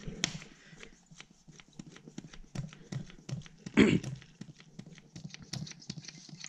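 Zetor tractor diesel's hand fuel priming pump being worked to bleed air from the fuel system: a string of light clicks and knocks, about two or three a second, with one louder knock about four seconds in.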